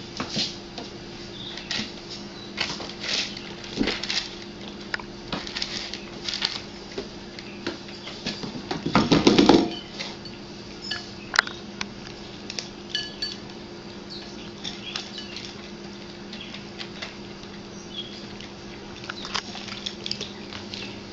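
Cats scrabbling about unsteadily, claws clicking and scraping on a hard surface, with scattered knocks and a rapid rattling clatter about nine seconds in, over a steady low hum.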